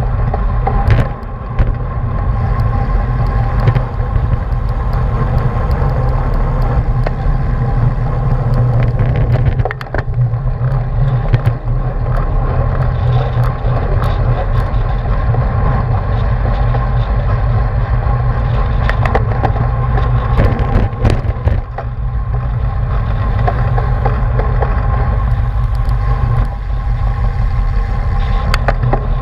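Wind rushing over the microphone of a camera mounted on a racing bicycle riding at speed in a pack, with a steady hum from the tyres and drivetrain and scattered clicks and rattles.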